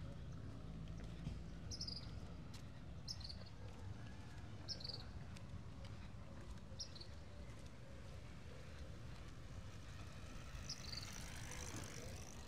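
Faint outdoor ambience: a small animal gives short high chirps every one to two seconds over a steady low rumble. Near the end a motor's sound swells in.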